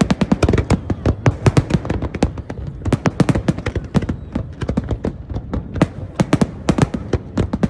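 Fireworks going off in a rapid, irregular string of sharp cracks and bangs, several a second.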